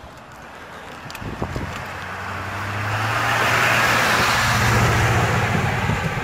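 A pickup truck coming up from behind and passing close by. Its low, steady engine hum and tyre noise swell to a peak, then begin to fade as it pulls away.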